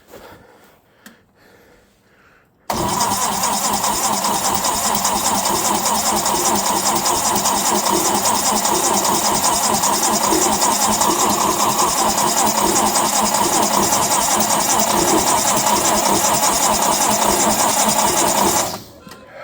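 Lincoln SA-200 welder's engine cranked by its starter for about sixteen seconds without catching: a cold start in 15° weather, helped only by a squirt of brake cleaner as starting fluid. The cranking starts suddenly about three seconds in and cuts off sharply near the end.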